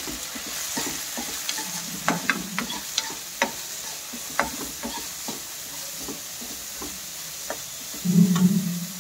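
Steel spoon stirring chopped onion and green peas frying in oil in a kadai: a steady sizzle under repeated sharp clicks and scrapes of the spoon against the pan, with a brief, louder low hum near the end.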